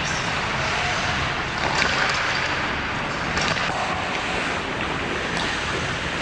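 Ice hockey play in an indoor rink: a steady hiss of skates carving the ice, with a few brief scrapes and knocks from sticks and puck.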